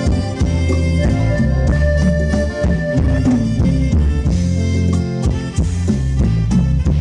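Live band music played loud through a PA: drum kit beating steadily over a heavy bass line, with long held reedy keyboard-like melody notes on top.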